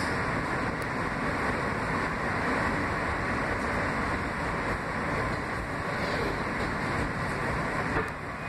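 R160B subway car (Kawasaki-built, Siemens propulsion) running along the track, heard from inside the car: a steady rumble of wheels on rails, with a faint click about eight seconds in.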